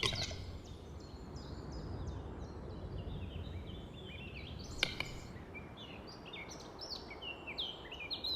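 Small songbirds singing, with repeated short, high chirping phrases over a low steady background rumble. A single sharp click comes about five seconds in.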